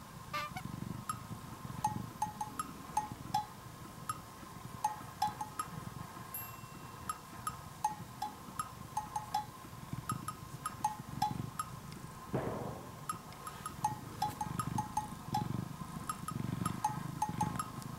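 Domestic cat purring, a low rumble that swells and fades every second or two, under light background music with short plinking bell-like notes.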